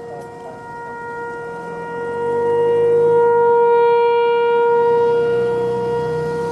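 Federal Signal 508-128 dual-tone rotating outdoor warning siren sounding a steady Alert tone. Its loudness swells about two seconds in and eases off again as the rotating horn sweeps past.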